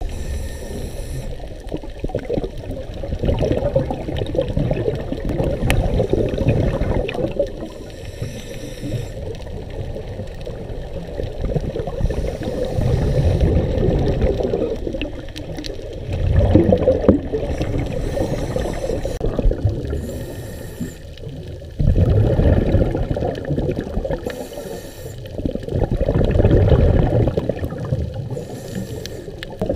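A scuba diver's regulator breathing underwater: exhaled bubbles rumble out in swells of a few seconds each, with short hisses between them.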